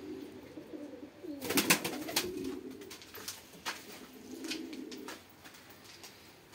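Domestic pigeons cooing, low warbling coos in two spells, the second around four to five seconds in. A few sharp clicks and knocks come in the middle.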